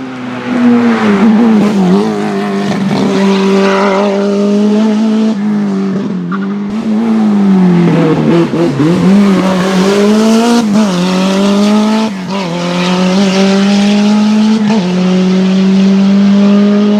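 Race car engine at full throttle on a hillclimb, its pitch climbing and then dropping sharply at each upshift or lift several times over, and holding a steadier note near the end.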